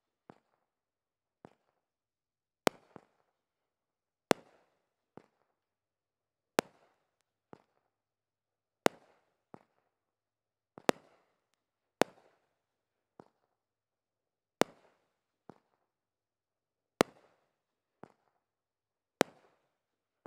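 Joker's Wild consumer fireworks cake firing shot after shot. A loud, sharp bang comes about every two seconds, with a softer pop between each pair.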